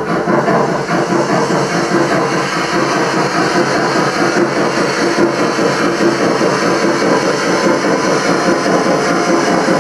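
Gauge 1 model BR 50 steam locomotive running with a small goods train, a steady running sound of the locomotive and wagons on the track.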